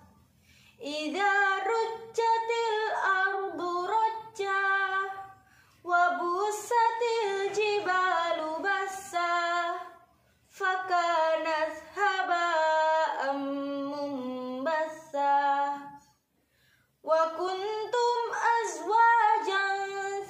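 A young woman reciting the Qur'an aloud in melodic tartil style, her voice alone and unaccompanied, in four long held phrases with short breath pauses between them.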